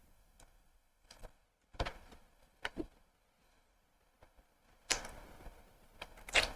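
A few soft, scattered clicks and taps from eating ice cream out of a cup with a spoon.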